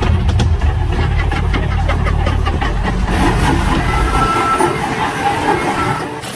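Heavy construction machine engine running with a deep rumble and rapid clanking knocks, which fade after about three seconds. Short high beeps come about four seconds in and again near the end.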